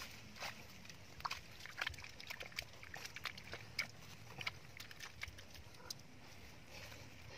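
Wet mud being pressed and patted down by hand and foot: faint, short, irregular squelches and clicks, thickest about one to two seconds in.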